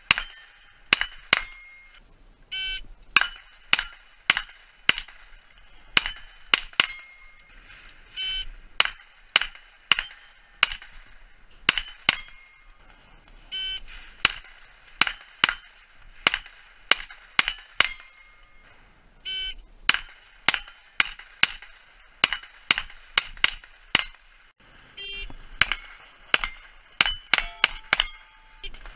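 Pistol-caliber carbine firing quick strings of shots at steel plates, with the plates ringing as they are hit. Each string is a rapid cluster of sharp cracks, and short pauses fall between strings.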